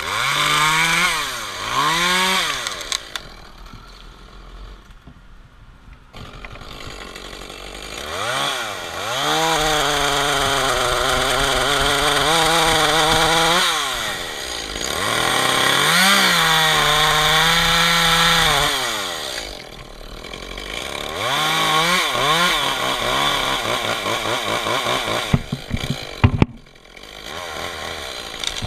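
Echo CS-271T top-handle two-stroke chainsaw cutting through red maple limbs. It gives a couple of quick throttle blips and idles for a few seconds, then holds full throttle through two long cuts of about five seconds each, then revs briefly again.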